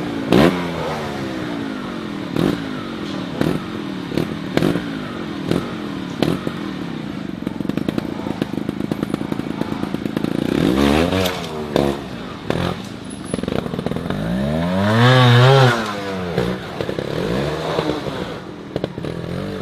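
Trials motorcycle engine worked in short throttle blips as it climbs over rocks, the revs rising and falling again and again, with sharp knocks in between. Two stronger revs come near the middle and about three quarters in, the second the loudest.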